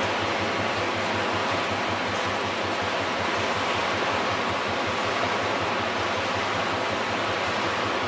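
Fast river water rushing below the bridge, a steady, even hiss.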